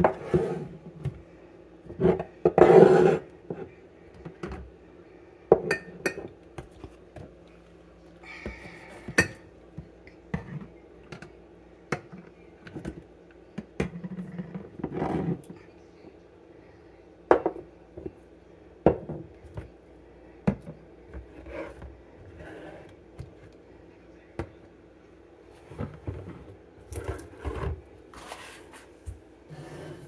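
Glass and plastic condiment bottles and jars knocking and clinking as they are picked up and set down on a kitchen counter, in scattered, irregular knocks over a faint steady hum.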